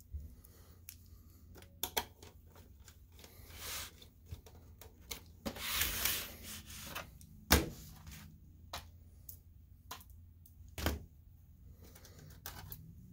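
A perforated sheet-metal cage being handled and fitted onto a projector chassis, with screws picked from a plastic parts bin: scattered clicks, taps and rattles, a brief scrape a little before halfway, and two sharp louder knocks in the second half.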